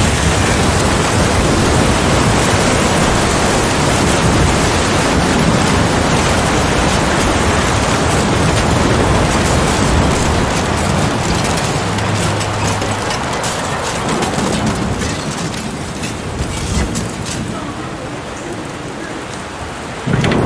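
Tornado winds and rain battering a building: a loud, steady rush with many sharp clicks and knocks of flying debris. It eases off over the second half, then there is a sudden bang near the end.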